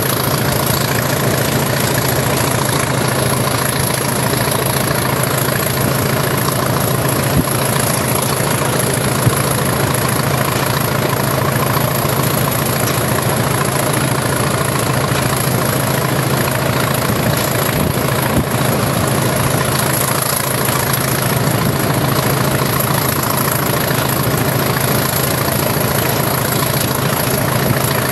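BR Class 20 diesel locomotive's English Electric eight-cylinder turbocharged engine working hard under power, a steady deep throb with a thin high whine above it, heard close alongside the moving locomotive along with its wheel and rail noise.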